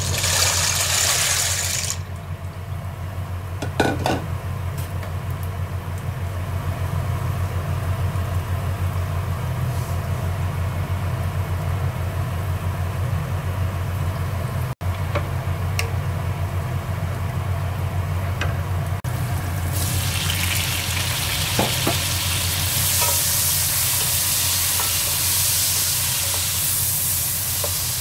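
Dry pasta tipped from a bowl into a pot of water, a brief rattle and splash, over a steady low hum with a few clicks. From about two-thirds of the way through, sliced onions and tomatoes sizzle in oil in an aluminium pot while being stirred with a wooden spoon.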